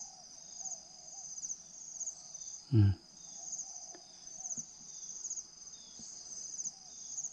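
Steady high-pitched insect chorus, pulsing about twice a second, with faint repeated cooing of a spotted dove underneath. A single loud short thump about three seconds in.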